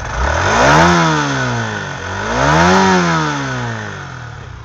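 Small single-cylinder motorbike engine blipped twice from idle, the pitch rising to a peak and falling back each time, then dropping back toward idle near the end.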